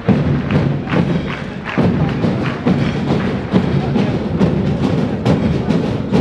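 March music for a parade, with a steady drum beat of about two strokes a second.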